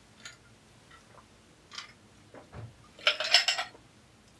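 Ice cubes clinking in a drinking glass as it is drunk from and lowered, with a few faint clicks and then a quick cluster of clinks about three seconds in.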